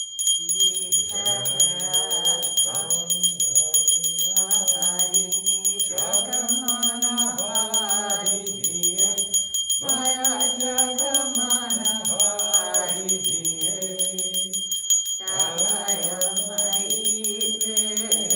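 Voices singing an arti hymn together over a bell rung rapidly and without pause; the bell starts sharply at the outset.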